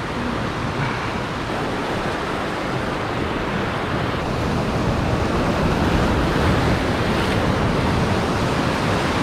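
Heavy ocean surf from a building swell, breaking and washing up the shore in a continuous rush that grows louder about halfway through, with wind buffeting the microphone.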